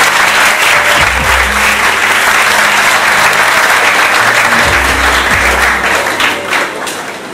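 Audience applauding steadily, with music playing underneath; the clapping thins out near the end.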